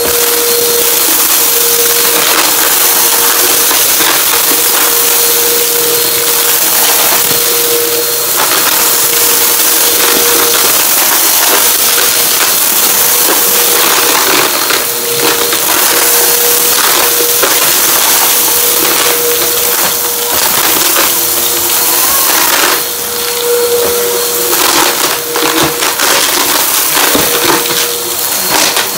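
Bissell upright vacuum cleaner running with a steady motor whine while it sucks up crunchy debris from a rug. The debris crackles and rattles through the nozzle, more thickly in the second half.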